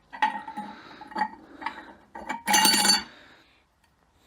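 Steel overdrive clutch-pack parts of a 42RE automatic transmission clinking and ringing as they are handled and set in place: several separate clinks, then a louder metallic rattle about two and a half seconds in.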